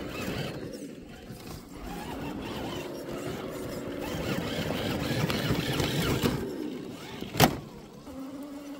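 Electric motor and gears of an RC scale crawler whining at changing speed as it climbs over a rock, its tyres crunching through dry leaves. A single sharp knock comes near the end.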